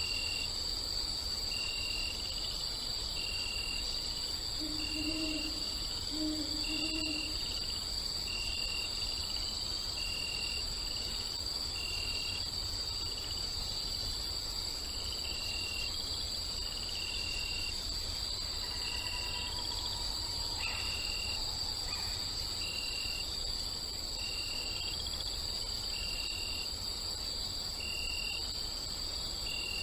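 Night-time nature ambience: crickets chirping in a steady, regular rhythm, with an owl hooting twice about five and seven seconds in.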